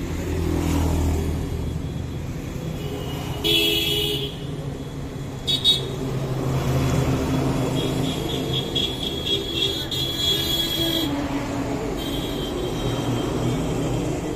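Street traffic: a steady rumble of vehicle engines, with vehicle horns honking several times, one stretch of quick repeated toots in the middle.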